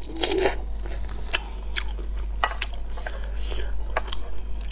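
Close-up eating sounds of a cooked sea snail: a short wet slurp as the meat is sucked from the shell, then scattered clicks and smacks of chewing and chopsticks and fingers working the shell. A low steady hum runs underneath.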